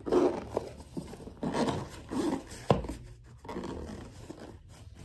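Rustling and scraping of the GoPro camera's retail box and packaging being handled and opened, in irregular bursts, with one sharp click a little before three seconds in.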